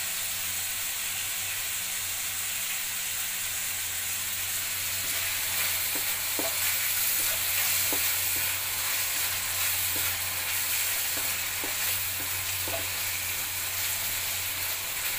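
Fish, carrots and ketchup sauce sizzling in a metal wok, with a steady hiss and a low hum underneath. From about five seconds in, a wooden spatula stirs the pan, knocking and scraping against the wok roughly once a second.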